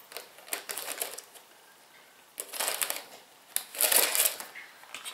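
Tissue paper in a cardboard gift box rustling and crinkling as it is handled, in three short bursts.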